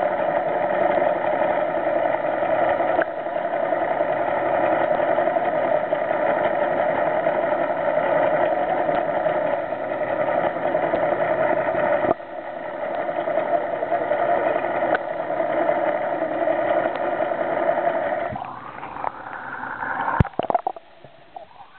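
Boat engine running, heard underwater through the camera housing as a steady droning hum. Near the end the drone breaks up and drops away, and a sharp knock follows.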